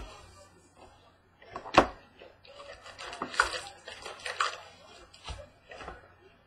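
Trading-card hobby box and foil pack being handled and opened: a sharp knock about two seconds in, then rustling and crinkling of the wrapper and cards.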